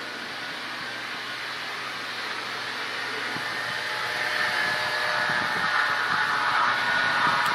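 A steady mechanical whir with a faint low hum, growing louder over the last few seconds.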